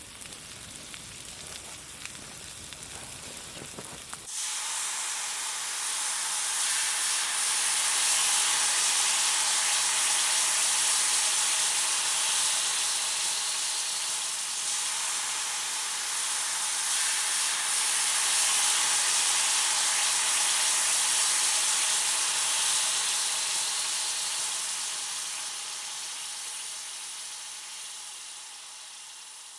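Taco meat sizzling in a cast iron skillet over a campfire: a steady high frying hiss that begins abruptly about four seconds in, swells, then slowly fades toward the end.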